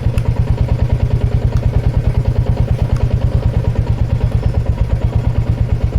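Royal Enfield Meteor 350's single-cylinder engine idling steadily, an even beat of about eight pulses a second.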